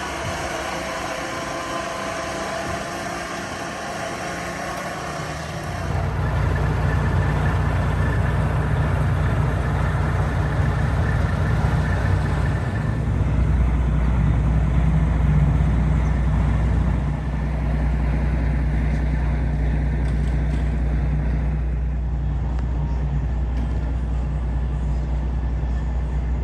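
A vehicle engine running steadily, a low drone that comes in about six seconds in and gets louder for a few seconds in the middle.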